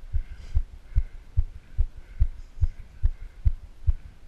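Regular low thumps, about two and a half a second in an even rhythm, over a faint hiss.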